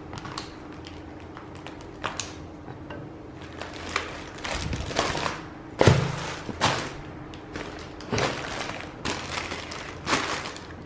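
Thick chocolate shell of a giant Easter egg being broken apart by hand over aluminium foil: irregular snaps and cracks with rustling handling, the loudest crack with a thud about six seconds in.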